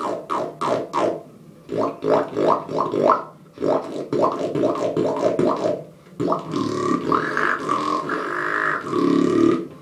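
A beatboxer's lip roll: lips flapping in a rapid buzz, outwards and inwards, in several stretches with short breaks. Near the end a pitched tone rides on top of the buzz.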